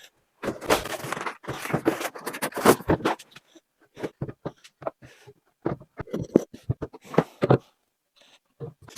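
Scraping and knocking as a kitchen base cabinet is handled and shifted into place: about two and a half seconds of continuous scraping, then scattered short bumps and scrapes.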